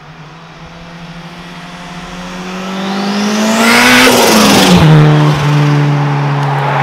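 Turbocharged classic two-door car accelerating toward and past. Its engine note rises in pitch and loudness, with a thin rising turbo whistle just before it is closest. The pitch drops sharply as it passes a little after halfway, and the engine note carries on steadily as it moves away.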